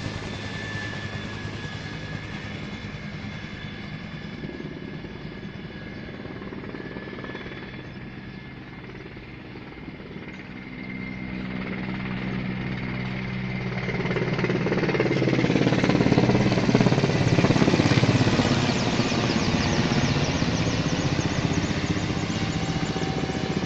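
Military helicopters flying overhead, their engine and rotor sound steady but fading through the first half. A larger helicopter then approaches, growing loud about two-thirds of the way in, with the rapid, even beat of its rotor blades as it passes.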